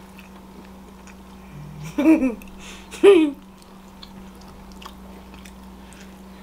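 Close-up chewing and biting of a pretzel-bun chicken sandwich, with faint scattered mouth clicks. About two seconds in come two short vocal sounds a second apart, each falling in pitch.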